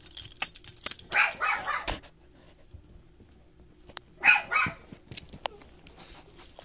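Dogs at play with short rough barks: one burst of barking about a second in and a quick double bark about four seconds in, after a high jingling in the first second.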